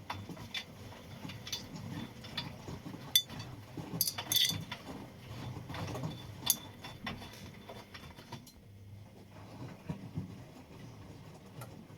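Washing machine running: a steady low hum with scattered mechanical clicks and clunks, the loudest about three, four and six and a half seconds in.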